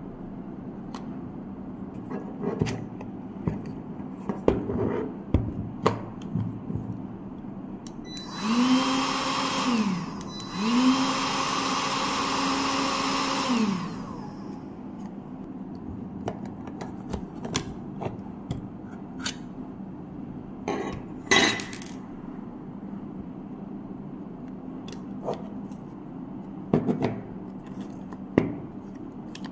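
Hot air gun's blower motor switched on twice in a row for a few seconds each time, its whine rising as it spins up and falling away as it stops. Scattered clicks and knocks of the tool being handled come before and after.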